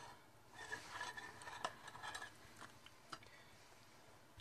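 A metal serving spoon scraping and clinking faintly on a china plate as a stuffed pepper is served: a cluster of soft scrapes and clicks in the first half, then a couple of single light ticks.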